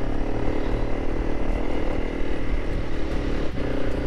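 Honda CRF300 Rally's single-cylinder engine running steadily as the motorcycle climbs a rough dirt track, with a short knock about three and a half seconds in.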